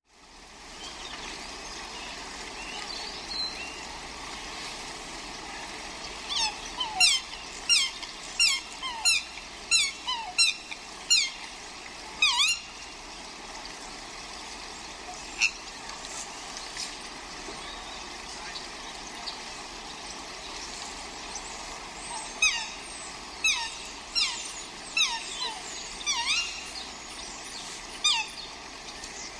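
Swans calling: two bouts of rapid repeated squawking honks, each call a quick sharp bend in pitch, about one or two a second, over a steady background hiss.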